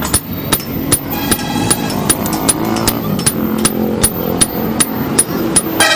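Hammer blows on metal in a steady rhythm, about three strikes a second, each with a short bright metallic ring, typical of forging work on an anvil.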